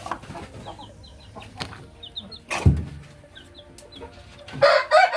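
Chicken sick with 'ngorok', a snoring respiratory illness, clucking and calling, with a sudden sharp burst about two and a half seconds in and a loud call near the end. The bird is bringing up phlegm after being dosed for the illness.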